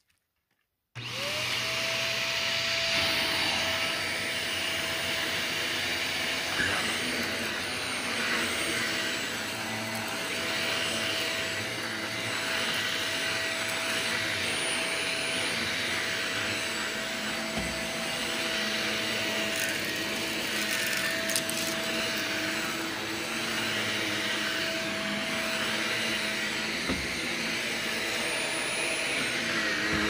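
Shark Navigator upright vacuum cleaner switched on about a second in: its motor whine climbs quickly to a steady pitch, then the machine runs steadily as it is pushed over carpet.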